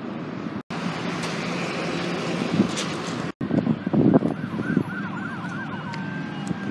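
Vehicle traffic noise, then from about four seconds in an emergency-vehicle siren yelping in a quick rising-and-falling pattern that settles into a held tone near the end.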